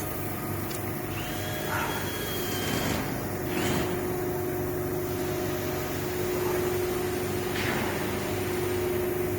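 Steady mechanical hum with a constant tone, a second tone joining about three and a half seconds in, and a few faint knocks.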